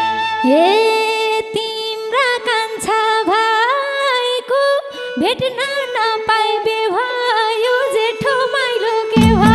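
Instrumental break in a Nepali folk dohori band: a lead melody instrument plays a sliding, ornamented tune over a steady held note, with no drums. About nine seconds in, the fuller band comes back in with its low end.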